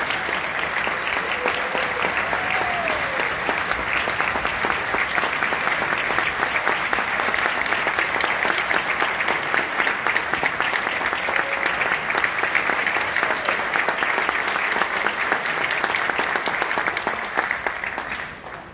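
Audience applauding: dense, steady clapping that tapers off at the very end.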